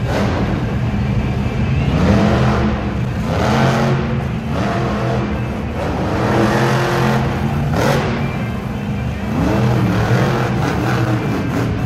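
Monster truck's supercharged V8 revving up and down in repeated surges as the truck spins and maneuvers on the dirt.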